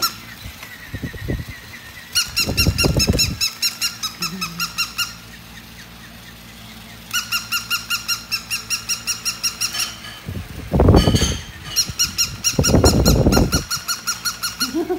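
Battery-operated plush toy dog giving out rapid high electronic chirps, about five a second, in runs of a few seconds with pauses between. In between come short muffled rustling bursts, the loudest about eleven seconds in, as a husky noses and mouths the toy.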